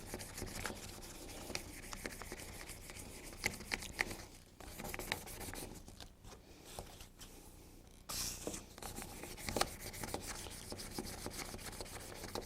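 Dry hand-sanding of a plastic lamp lens with 600-grit sandpaper, a scratchy rubbing that works the last scratches out. It eases off for a while in the middle and picks up louder again about eight seconds in.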